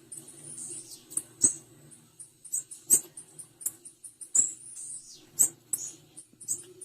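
Female blue-black grassquit (tiziu) calling: a quick, uneven run of short, high chirps, several a second, with a few louder, sharper ones.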